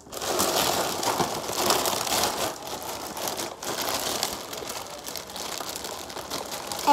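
Plastic snack-size chip bags being handled and rummaged through, crinkling and rustling continuously.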